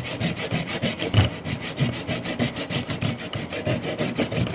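Fine-toothed handsaw cutting through the plastic housing of an ice machine's ice thickness sensor, in quick, even back-and-forth strokes, about six or seven a second.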